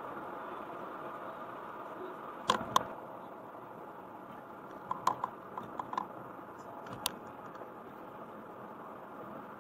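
Steady road noise of a car driving, with two sharp clicks about two and a half seconds in, a cluster of lighter clicks a little past halfway, and a single click shortly after.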